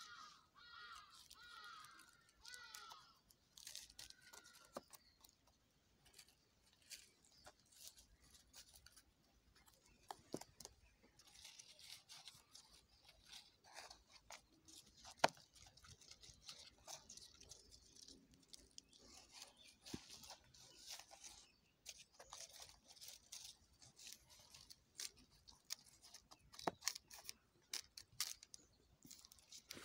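Near silence with faint, intermittent scraping and crunching as a stick works granular fertilizer into the soil among strawberry leaves, broken by a few sharper clicks.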